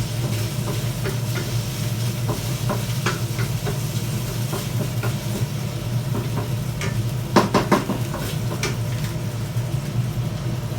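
Pork cubes sautéing in a pan with onion, garlic and ginger: a sizzle with a spatula scraping and knocking against the pan now and then, and a quick run of louder knocks about seven seconds in. A steady low hum runs underneath.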